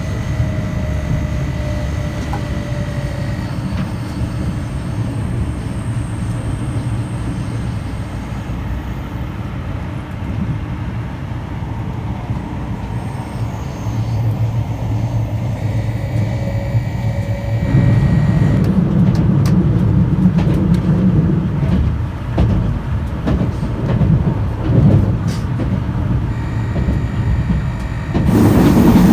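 Electric express train running, a steady low rumble of wheels on rail with a faint thin whine over it. It grows louder about two-thirds in, with scattered clicks, and a louder sound comes in just before the end.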